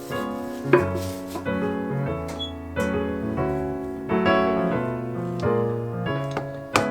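Background piano music, a run of sustained notes changing every half second or so, with two sharp clicks: one under a second in and one near the end.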